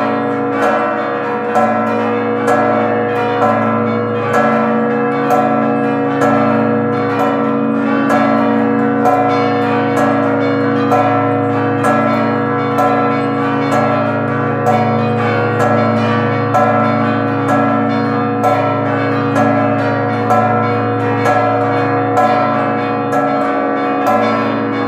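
The church's peal of bells, cast by Leotta, Triganza and Bouchet and tuned from B2 up to E-flat 4, rung rapidly together in festive ringing for the Forty Hours devotion. The strikes overlap in a pattern that repeats about once a second, over the steady hum of the deepest bell.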